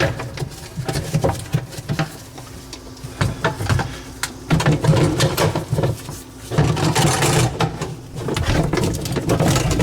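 Plastic dishwasher parts being worked loose and pulled out by hand: scattered clicks, knocks and rattles.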